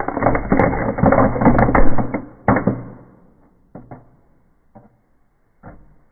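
Indoor fireplace firework crackling and popping, played in reverse: a dense run of crackles and pops for about three seconds, then a few separate pops.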